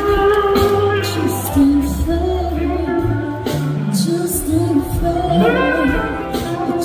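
A live soul band playing: a woman sings the lead over electric guitar, bass, drums and a horn section, recorded from the audience.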